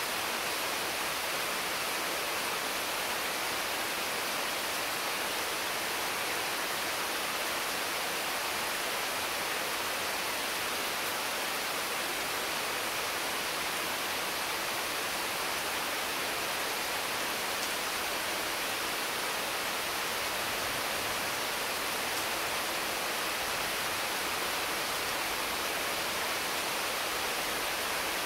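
Intense, constant rain falling on mango, papaya and other tree leaves: a steady, even hiss with no single drops or other sounds standing out.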